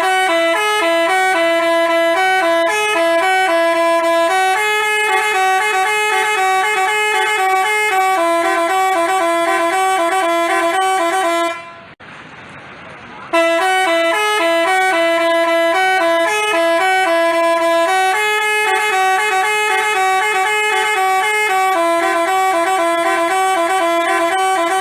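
Basuri telolet horn, a multi-tone horn, playing a tune of quick stepping notes. It stops about twelve seconds in and starts the same tune again after a short pause.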